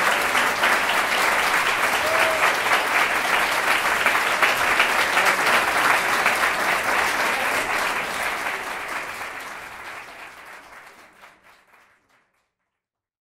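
Audience applauding, many hands clapping at once. The applause fades out from about eight seconds in until it is gone near the end.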